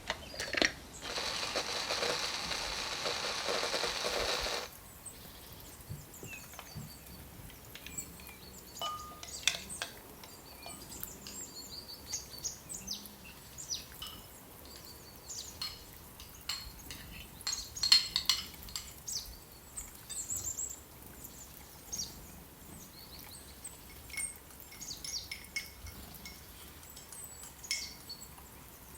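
Kitchen handling sounds: a steady rushing hiss for a few seconds near the start, then scattered light clinks and taps of utensils and dishes, the loudest about midway.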